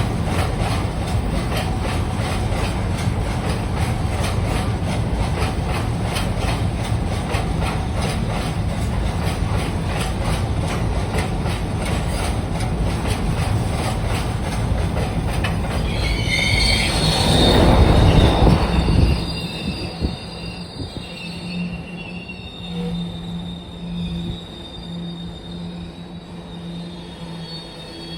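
Freight train wagons rolling past at close range, their wheels clicking in a fast, even rhythm over the rail joints. The sound swells with a squeal of steel wheels on rail just before the train clears, then drops away sharply about nineteen seconds in.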